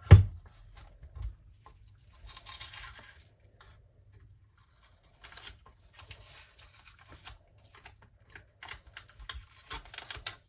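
A single heavy thump, then scattered light clicks and short bursts of scraping from a hand tool working the edge of a resin board.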